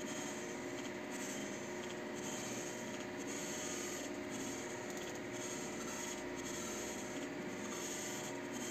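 HP LaserJet Pro MFP M428dw laser printer running: a steady mechanical whirr with a constant hum and a rasping, rubbing noise that swells and eases every second or so.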